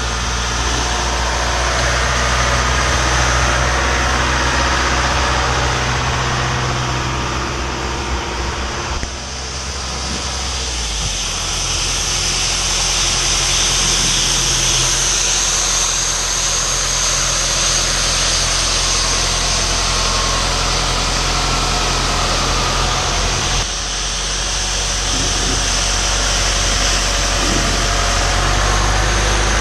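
John Deere tractor's diesel engine running steadily while the front-mounted street sweeper's rotating brushes scrub the asphalt, giving a continuous loud hiss over the engine note. The engine note shifts twice, briefly dipping about a third of the way in and again about four-fifths of the way in.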